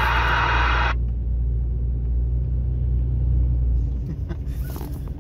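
CB radio receive noise that cuts off abruptly about a second in as the squelch closes at the end of another station's transmission, leaving the steady low road rumble of the truck cab in highway traffic. A few short clicks come near the end.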